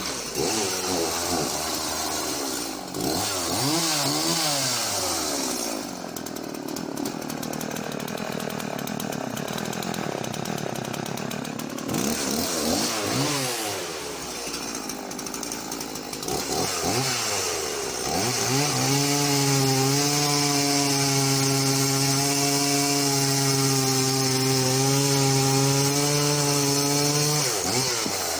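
Husqvarna Rancher 50 two-stroke chainsaw running, its engine revving up and down for the first part, then held at steady high revs for about eight seconds before the throttle drops near the end.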